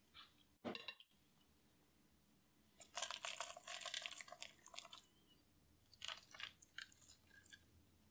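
Crumbly flour, brown-sugar and butter streusel being crumbled between fingers and sprinkled onto muffin batter and the metal muffin tin: a dense crackling patter of falling crumbs for about two seconds, then a few scattered crackles. A brief louder sound comes just before a second in.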